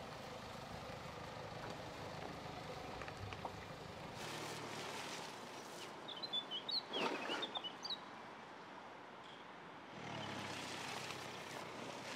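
Mercedes-Benz GLC 300d's four-cylinder diesel running at low speed as the SUV crawls along a dirt track, with a low hum at the start and again near the end. A bird chirps several times about halfway through, the loudest sound here.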